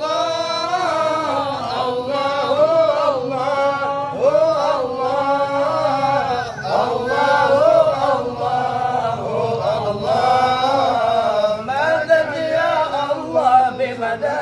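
A man's voice chanting an Arabic supplication in one long melodic line, holding and bending each note with no break.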